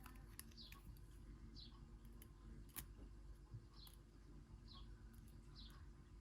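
Faint small-bird chirps, short downward notes repeated about once a second, over a steady low hum, with a few light clicks of small parts being handled.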